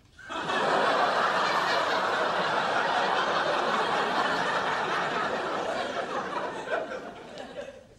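Sitcom audience laughing at a punchline: one long swell of laughter that comes in just after the line, is loudest early and slowly dies away near the end.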